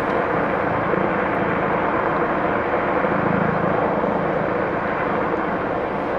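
Steady engine drone with a continuous rushing noise, unchanging throughout.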